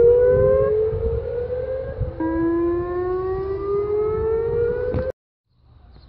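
Outdoor tornado warning siren sounding, its tone climbing slowly, over a low rumble. The tone drops and climbs again about two seconds in, and the sound cuts off suddenly about five seconds in.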